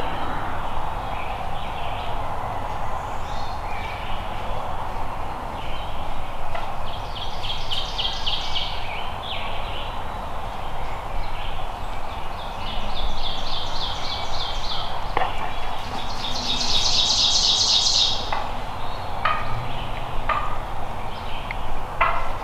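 A wild turkey gobbler gobbling three times, a few seconds apart, each gobble a rapid rattle lasting about two seconds, the last the loudest, over a steady background hiss.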